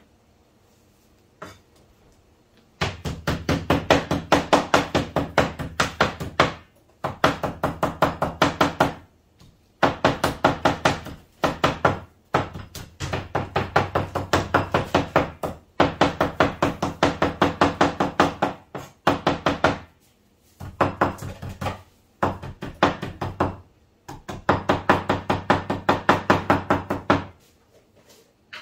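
Cleaver chopping rapidly on a chopping board, about six strokes a second, in runs of a few seconds with short pauses. This is typical of meat being minced for laab.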